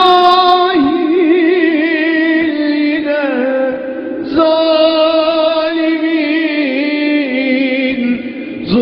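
Background music in a Middle Eastern style: a wordless sung melody of long held notes that waver and slide, in phrases that begin at the start, about four seconds in, and near the end.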